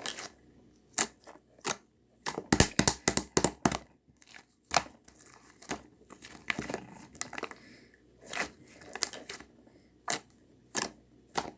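Green mint slime being squished and stretched by hand, giving irregular sticky pops and crackling clicks, with a dense run of them about two to four seconds in.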